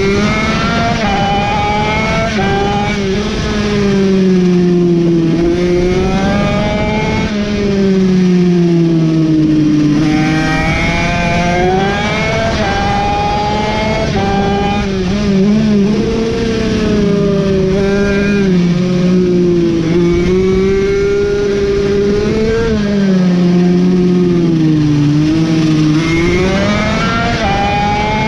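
Racing mini bike's engine heard from on board at full race pace. The pitch repeatedly climbs as it revs out, drops back at each gear change or corner, then climbs again.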